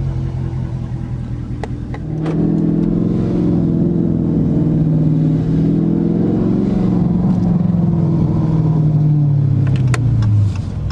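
Car engine running low, then, about two seconds in, picking up louder and higher as the car accelerates away, holding, and easing off again near the end. A few short clicks sound over it.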